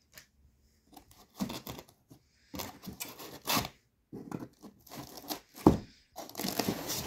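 Corrugated cardboard packaging being handled: inserts scraped, pulled and rustled in a run of short irregular scrapes, with one sharp knock about three-quarters of the way through.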